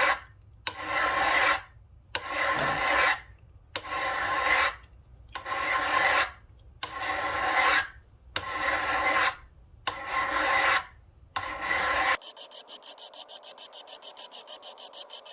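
A hand file rasping across the steel of a rusty hammer head in long, even strokes, about one every second and a half. Near the end the filing stops and a fast, even ticking follows.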